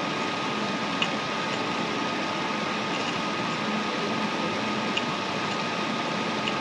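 Steady background hiss of the recording setup with a faint constant whine, broken by a few faint clicks about two seconds apart.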